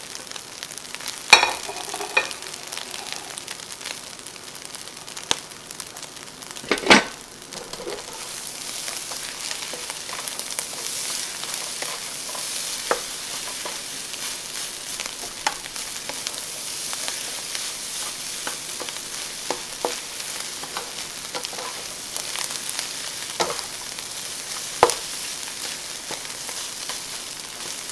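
Shrimp fried rice sizzling in a nonstick wok while a spatula stirs and tosses it, with scattered scrapes and knocks of the spatula against the pan. Two louder knocks come about a second in and near seven seconds, and the sizzle grows stronger from about eight seconds on.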